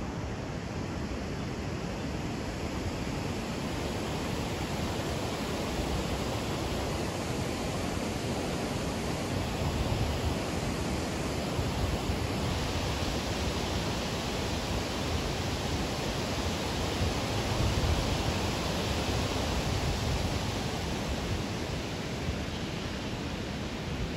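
Steady rush of river water spilling over a low weir, growing a little louder through the middle.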